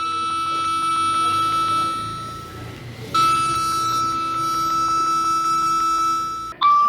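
Emergency alert attention signal: a harsh, steady alarm tone with a lower tone beneath it, sounding twice with a short break about three seconds in. Near the end the alarm cuts off and a short electronic melody of stepping notes begins.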